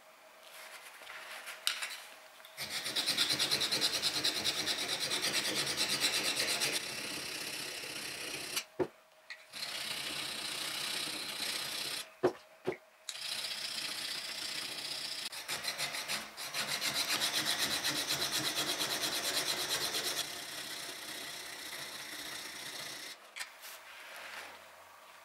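A rusty steel chisel scrubbed back and forth on wet coarse sandstone in fast, rasping strokes, grinding off rust to flatten it. The scraping stops briefly twice, with a few sharp knocks of steel or stone on stone in the pauses.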